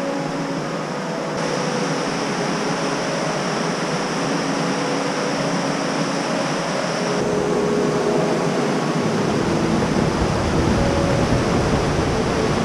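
Fast, high river rushing over rocks in white water, a steady even rush of water noise. The rush changes character at each shot change and gains more low rumble from about seven seconds in.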